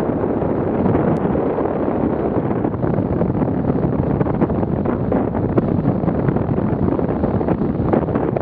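Steady rush of airflow buffeting the microphone of a camera mounted on a hang glider in flight.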